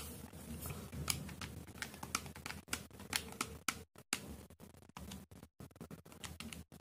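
Faint, irregular clicks of calculator keys being pressed one after another, several a second, as a sum is keyed in.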